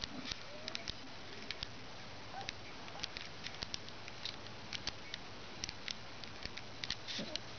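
Two-week-old Alaskan Malamute puppies wriggling and mouthing each other, giving many small irregular clicks and rustles over a steady low hiss.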